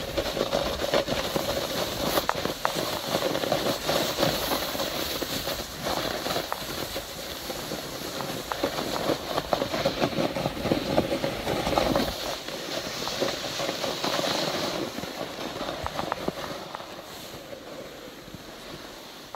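Snowboard sliding over snow: a steady, rough scraping rumble with many small clicks, easing off in the last few seconds.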